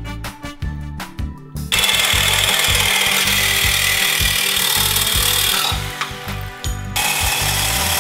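Angle grinder cutting through the metal subframe support brackets of a Yamaha MT-03, starting about two seconds in with a loud high-pitched grinding that briefly lets up around six seconds before biting in again. Background music with a steady beat underneath.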